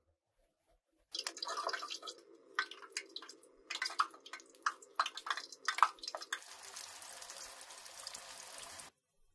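Batter-coated vegetable and sardine balls deep-frying in hot oil. They crackle and pop irregularly at first, then settle into a steady sizzle that stops suddenly near the end.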